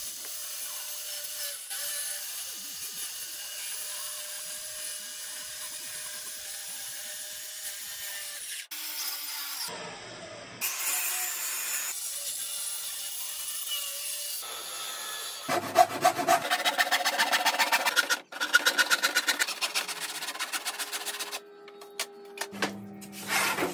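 A circular saw cutting through a plywood sheet along a taped line, heard in several short edited stretches. In the last third come rhythmic back-and-forth strokes of a handsaw cutting through the plywood.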